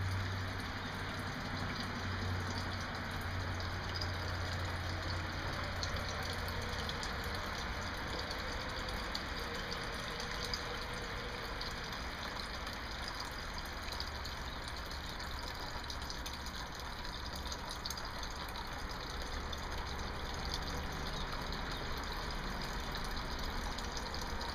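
Small decorative water fountain running, a steady splashing and trickling of water, with a low hum under it for the first several seconds.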